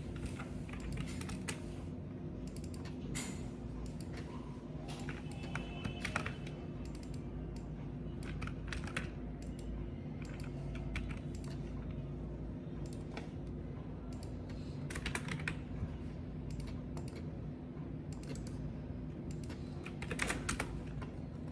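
Typing on a computer keyboard: irregular keystrokes, some in quick runs, over a steady low hum.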